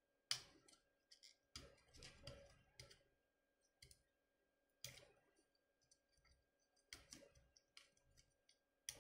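Faint, irregular clicks and taps of a small plastic 1:18 scale toy drone's jointed parts being worked by hand.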